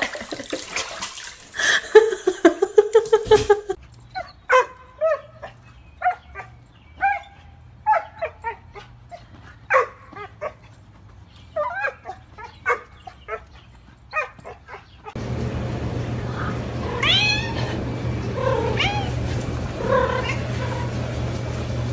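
Domestic cats meowing and yowling: a drawn-out yowl near the start and rising meows in the last few seconds over a steady low hum. In between comes a run of short, sharp squeaks, about one or two a second.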